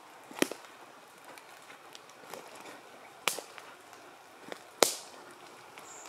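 Footsteps on a forest floor, with dead twigs and branches snapping sharply underfoot three times: just after the start, about three seconds in, and near five seconds, between softer crunching steps.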